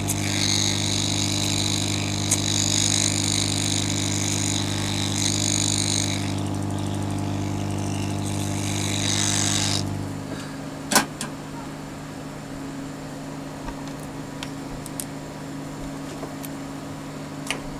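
Hot-air rework station blowing on a circuit board to desolder a chip: a steady fan hum with a hiss of air, which drops about ten seconds in, followed by a sharp click.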